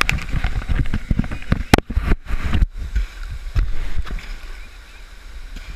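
Water sloshing and splashing against an action camera held at the surface of a swimming pool under a waterfall, with many knocks and low thumps of water on the camera. The sound briefly goes dull about two seconds in, then settles into a softer wash.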